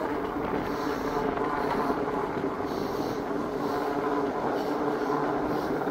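Electric bike riding along a tarmac lane at speed, its motor and tyres giving a steady whirring hum with a few held tones over road noise.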